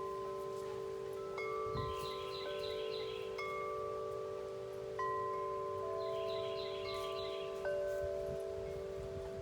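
Wind chimes ringing in the wind: several long, overlapping tones of different pitches, with new notes struck a few times as the wind moves the tubes.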